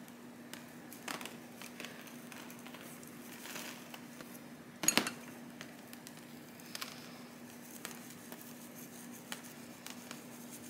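Light clicks, taps and soil rustling from a small terracotta pot being handled as a rooted cactus cutting and its gritty potting mix are worked out of it, with one sharper knock about five seconds in.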